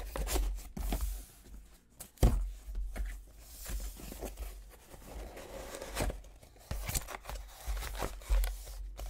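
Cardboard shipping box and paper packing being handled as it is opened: rustling, sliding and scraping, with scattered light clicks and one sharp knock about two seconds in.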